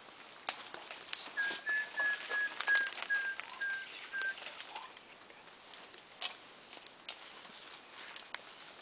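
A bird sings a series of about nine short, clear whistled notes, evenly spaced at about three a second and falling slightly in pitch. Scattered clicks and rustles sound around it.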